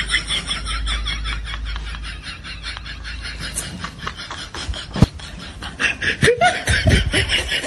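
Laughter: quick, rhythmic snickering, with a single sharp click about five seconds in.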